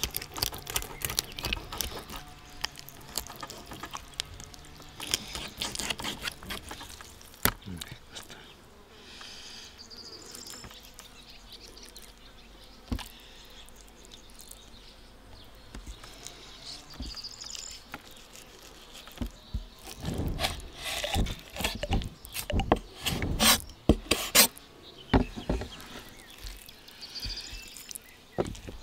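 Kitchen knife slicing and scraping through fish flesh and skin on a wooden cutting board, with short clicks and taps of the blade on the board. The cutting is busiest at the start and again about two-thirds of the way through. Insects buzz faintly in the background.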